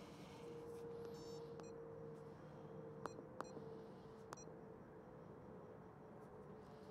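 Faint short electronic beeps from the keys of a handheld RigExpert Stick Pro antenna analyzer as it is operated: one beep about a second and a half in, then three brief click-beeps over the next three seconds, over a faint steady hum.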